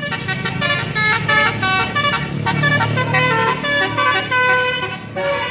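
Multi-note 'basuri' telolet bus horn playing a quick melody of short notes that step up and down in pitch, over an engine running underneath.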